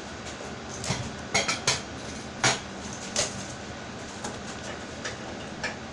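Whole fish being rubbed with salt and turned over in a bowl, giving a series of irregular knocks and clatters against the bowl, the loudest about two and a half seconds in.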